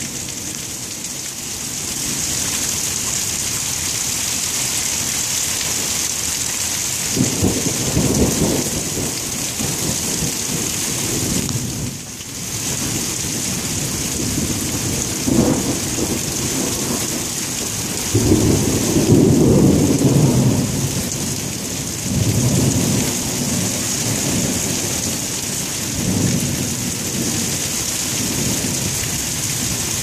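Thunderstorm: steady rain hissing, with several low rolls of thunder. The longest and loudest roll comes about two-thirds of the way through.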